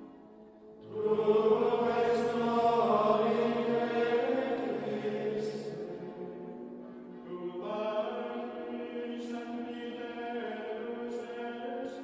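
Background music: a choir singing slow, sustained chant-like notes. The voices come in about a second in, fade a little, and swell again near the eight-second mark.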